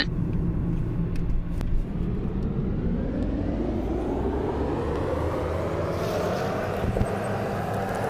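Inside a moving car: steady low engine and road rumble, with a hum that rises slowly and evenly in pitch.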